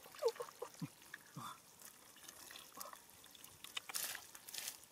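Wet mud squelching and sloshing as hands dig and scoop through shallow mud and water, in short scattered squelches and drips that grow busier near the end.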